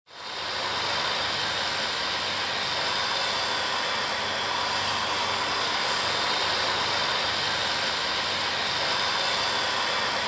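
A steady rushing noise that swells in over about the first second and then holds even, with no clear pitch or rhythm.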